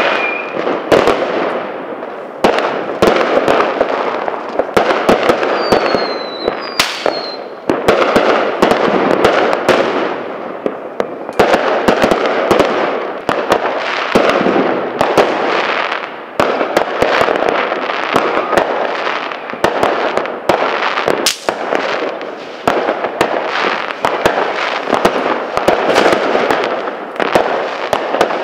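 Fireworks and firecrackers going off in a dense, unbroken barrage of overlapping bangs and crackling, with a couple of short falling whistles about six seconds in.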